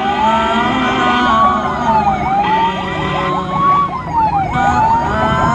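Ambulance siren wailing, its pitch rising and falling about every two seconds, with a faster yelping siren tone layered over it.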